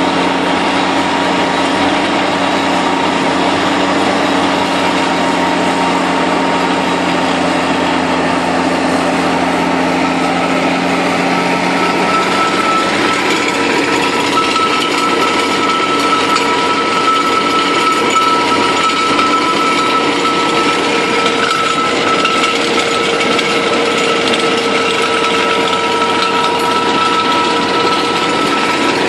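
Tractor engine running steadily under load, driving a GROWI three-point PTO slurry mixer through its spinning PTO shaft while the mixer churns a slurry pit. The note shifts about halfway through, when a higher steady whine comes in.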